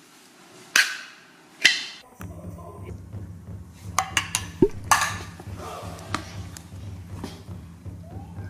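Metal can of cat food being opened by its pull-tab lid: two sharp metallic cracks about a second apart. They are followed by a steady low hum with scattered light taps and clicks.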